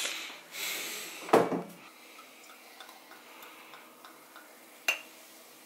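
Prosecco poured from the bottle into a glass champagne flute, the wine fizzing and foaming with faint ticking bubbles. There is a knock about a second and a half in and a single sharp glassy click near the end.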